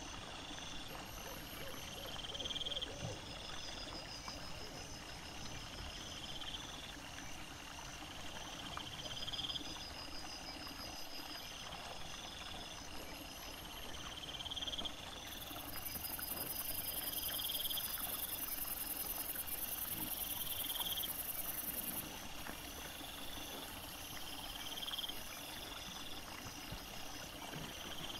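Night insects chirping in an even, repeating rhythm, several chirping at once at different pitches. For several seconds from about halfway, a steady very high hiss joins in.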